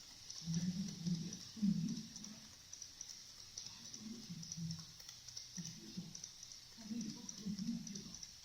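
Low, muffled voices talking indistinctly in short phrases, over a faint steady high-pitched hiss.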